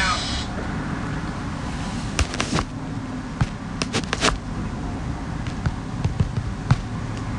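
Steady low background noise on a phone voice recording, broken by scattered sharp clicks and knocks, most of them bunched between about two and four and a half seconds in, with one more near the end. The backing music cuts off just at the start.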